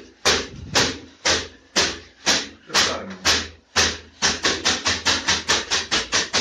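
Leafy bath brooms (veniki) swung and struck in a steady rhythm during a banya steaming, at about two strokes a second, quickening to about four a second from about four seconds in.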